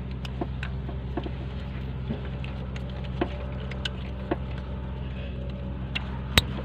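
Plastic clicks and light rattles as hands seat coil-on-plug ignition coils and snap their wiring connectors back on, with the sharpest click near the end. A steady low hum runs underneath.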